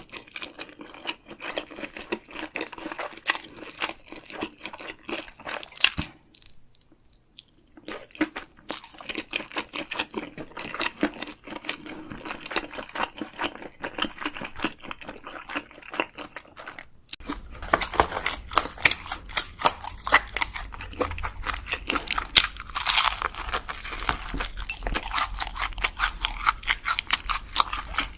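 Close-miked eating sounds: crunchy bites and chewing, with a short pause about six seconds in. From about seventeen seconds a low hum joins and the chewing gets louder.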